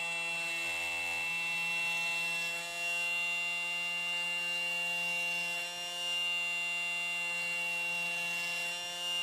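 Kobalt 24V brushless oscillating multi-tool with a round blade running at low speed (setting 2 of 6), a steady, even hum, its blade held against the plastic case of a USB power bank to score a shallow cut.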